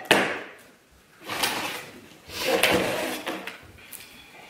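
Cardboard shipping box being handled and opened by hand: a sharp knock at the start, then two stretches of cardboard scraping and rustling.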